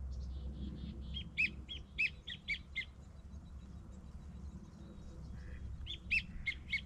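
Wigeon whistling: two runs of short, clear whistled notes, about four a second, with the second run starting about six seconds in.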